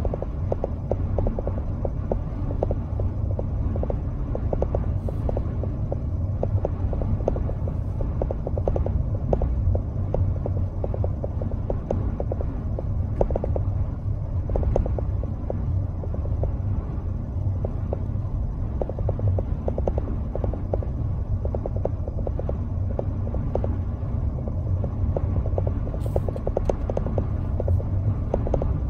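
Steady low rumble of a car driving along, heard from inside the cabin: engine and tyre noise, with a continuous crackle of the tyres running over cracked, patched concrete.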